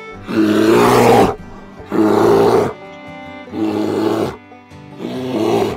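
Brown bear roaring four times, each roar rough and about a second long, coming roughly every one and a half seconds over soft background music.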